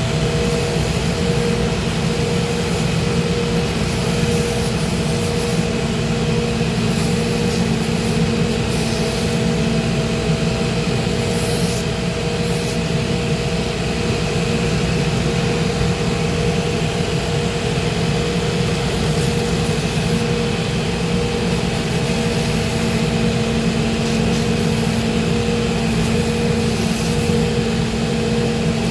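Electric motor of a shoe repair grinding and finishing machine running steadily, a constant hum at an unchanging pitch.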